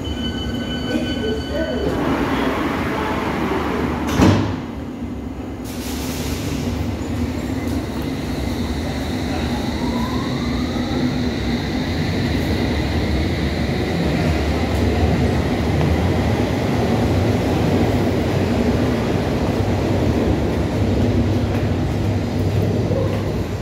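London Underground S Stock train at a platform: a steady door-closing warning tone, then the doors shut with a single loud thump about 4 seconds in. The train then pulls away, its traction motors whining and rising in pitch over a low rumble as it gathers speed.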